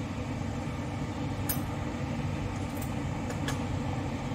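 A metal spoon clinking against a steel pan and spice tin: once about one and a half seconds in, then three quick clinks near the three-second mark, over a steady low hum.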